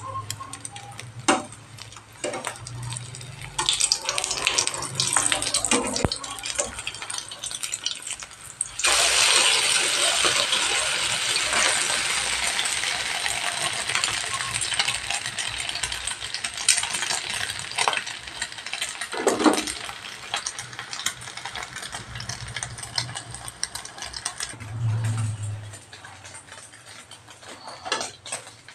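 Noodle-and-egg patty deep-frying in a pan of hot oil: a sizzle that turns suddenly much louder about nine seconds in, with scattered sharp clicks and knocks before that.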